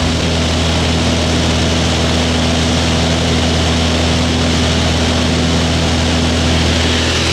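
Jump plane's engine and propeller heard from inside the cabin during the climb to altitude: a steady, loud, unchanging drone with several low hum tones.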